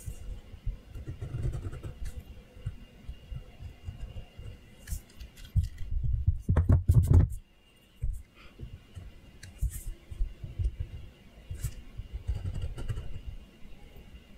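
Dull, low rubbing and bumping from a hand and pencil working over paper on a desk. It is loudest about six to seven seconds in and drops away briefly just after.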